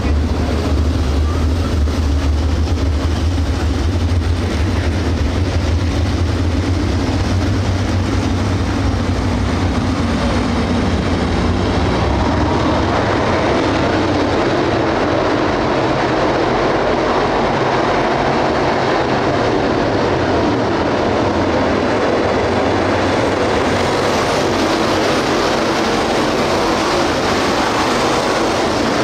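A field of dirt late model race cars, 602 crate V8 engines, running together around the track in a steady loud roar. A deep rumble is strong in the first ten seconds as the pack passes close, then gives way to a more even, higher roar.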